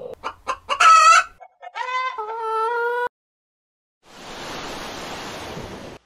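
A rooster crowing: a few short clicking notes, a loud high call, then a long held note that ends about three seconds in. After a second of silence, a steady hiss fills the last two seconds.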